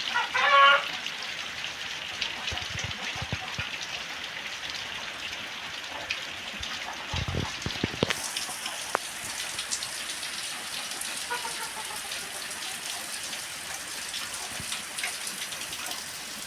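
Rain falling in a steady patter of drops. There is a short pitched call right at the start and a few low thumps about seven seconds in.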